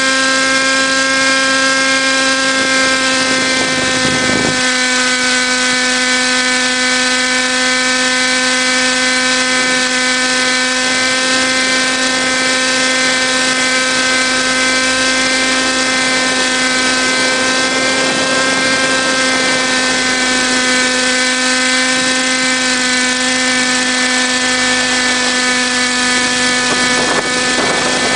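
A model helicopter's motor and rotor whining steadily at a constant high pitch.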